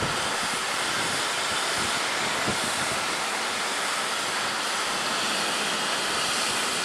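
LNER Class D49 4-4-0 steam locomotive moving slowly at walking pace, with a steady hiss of steam and a couple of soft low knocks in the first few seconds.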